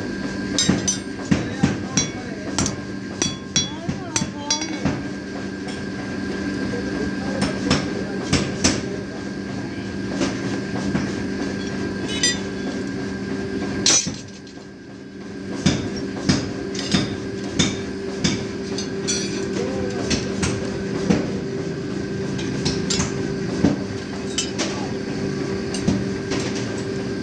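Hand hammer striking steel scissor-blade blanks on a steel anvil: sharp ringing blows, a quick run of them in the first few seconds and then single strikes at intervals, over a steady background hum.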